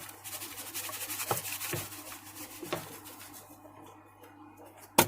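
Sand being scooped and poured in behind rocks in a reptile tank: a grainy hiss with a few light knocks for about three and a half seconds, then a single sharp click near the end, over a faint steady hum.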